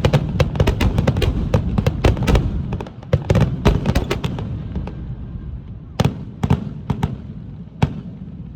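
Aerial fireworks in a finale barrage: dense, rapid bangs and crackle over a rumble for about three seconds. The barrage then thins to a few scattered single bursts, the last one shortly before the end, as the show dies away.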